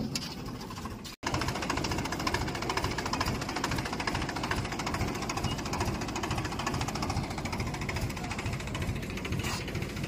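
Mahindra B275 DI tractor's three-cylinder diesel engine running with a steady, rapid knocking beat, starting abruptly about a second in.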